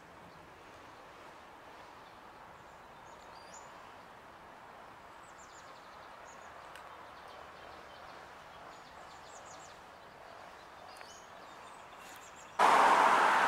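Quiet outdoor ambience with faint, scattered bird chirps. Near the end, a much louder steady rushing noise cuts in abruptly.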